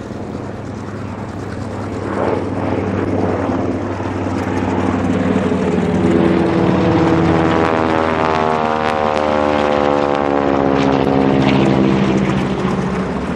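Grumman TBM-3E Avenger's Wright R-2600 twin-row radial engine and a smaller propeller plane flying past together in formation. The propeller drone builds up, then drops steadily in pitch as they pass, fading slightly near the end.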